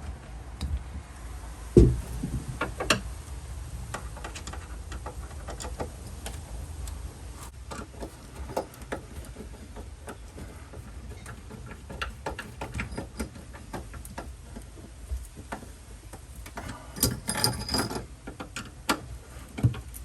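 Irregular clicks and knocks of screws, a bracket and hand tools being handled while a hatch spring support is fitted, with one heavy knock about two seconds in and a quick run of clicks near the end.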